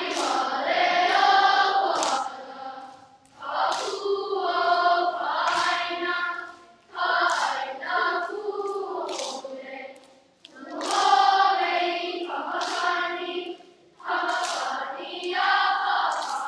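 A chorus of children singing together in phrases of about three to four seconds, with short pauses for breath between them.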